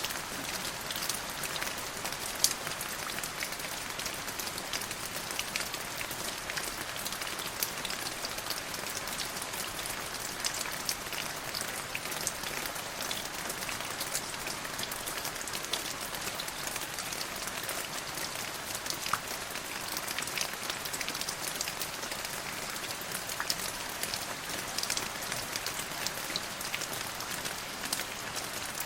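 Steady rain falling and pattering on a surface, an even hiss dotted with many sharp individual drop impacts.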